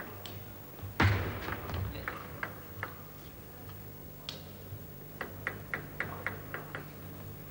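Table tennis ball bouncing with light, regular clicks, about three a second, in the seconds before a serve, with a single louder knock about a second in and scattered clicks after it.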